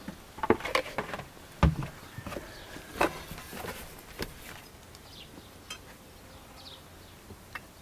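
Hands pressing and patting a large lump of dough on a floured wooden board: a handful of soft knocks and thumps in the first four seconds, then only faint background sound.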